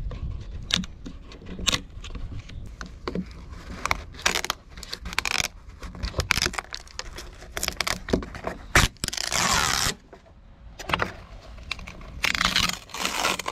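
Rotten plywood core being pried and scraped out of a boat's fibreglass cockpit floor with a hand tool and fingers: irregular scraping, cracking and crackling as soft, decayed wood and fibreglass pieces are torn loose. Two longer tearing rasps come about two-thirds of the way in and near the end.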